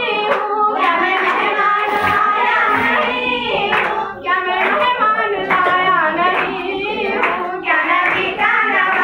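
A girl singing a song into a microphone, with hand claps sounding through the song.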